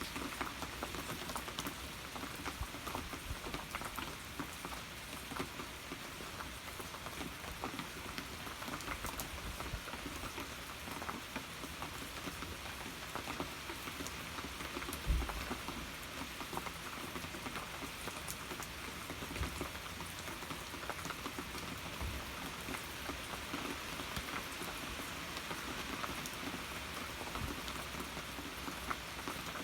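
Steady rain falling and pattering on surfaces, with a dense scatter of individual drop ticks. One dull low thump about halfway through.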